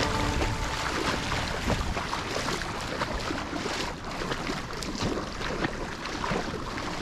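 Feet splashing as people wade through ankle-deep sea water, with wind rumbling on the microphone.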